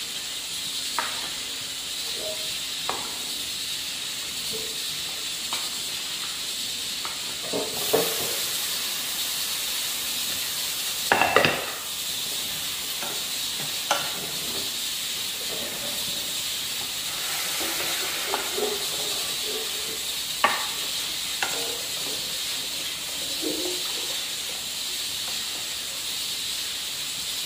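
Food cooking on a stove: a steady hiss, with scattered light knocks and clinks of utensils and pots, the loudest a short cluster about eleven seconds in.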